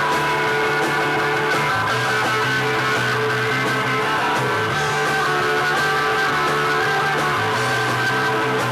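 New wave rock band playing an instrumental passage: guitar over a moving bass guitar line, at a steady loud level.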